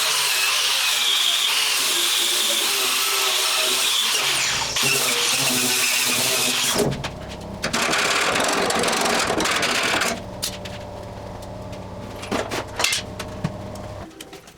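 A handheld power tool running against metal with a harsh, high-pitched grinding noise. It cuts out about seven seconds in, leaving a lower steady hum for a few seconds, then quieter handling with scattered clicks and knocks.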